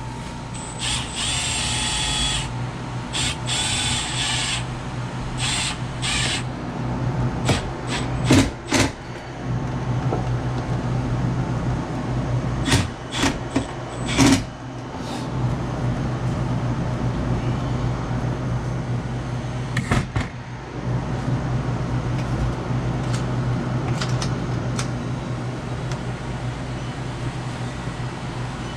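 Steady low machine hum, with a couple of short rasping or whirring bursts near the start and a few sharp clicks and knocks from hands working on the ice machine's parts and wiring.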